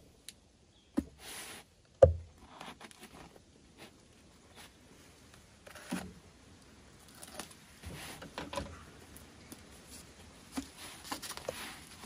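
A folding knife slitting packing tape on a long cardboard shipping box, with scraping and rustling of cardboard and scattered knocks as the box is handled and its end flap pried open. The loudest sound is a single sharp thump about two seconds in.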